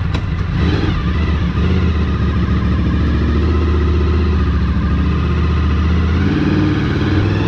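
Honda VFR800fi's V4 engine running steadily, with the revs rising and falling near the end as the bike pulls away.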